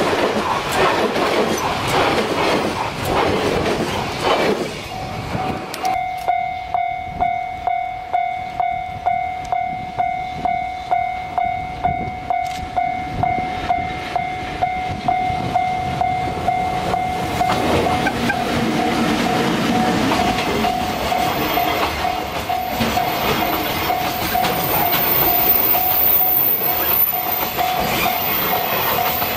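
Freight train of container wagons rolling past with clickety-clack of wheels over the rail joints. About five seconds in, a level-crossing bell starts ringing, about two strokes a second. An EF65 electric locomotive then approaches and passes, followed by its wagons, and the rolling noise builds again near the end.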